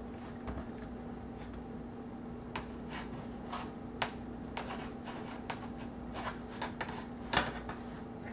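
Metal rotisserie spit rod and spit fork being worked into a raw whole chicken on a metal sheet pan: scattered light clicks and taps of metal, with soft handling sounds of the raw bird, over a steady faint hum.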